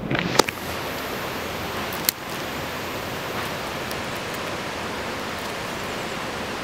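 Steady rushing outdoor background noise, even and unchanging, with a few sharp clicks in the first half second and a single click about two seconds in.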